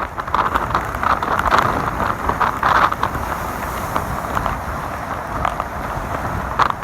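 A vehicle driving through floodwater: a steady rushing and splashing of water against the body, with wind on the microphone.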